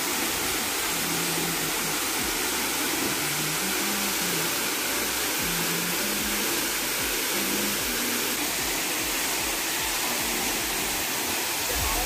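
Steady rush of a waterfall plunging into a rock pool.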